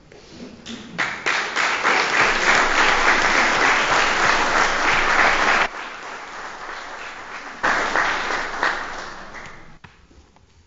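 Audience applauding. The clapping swells about a second in and breaks off suddenly about halfway through, then a second, shorter round fades away near the end.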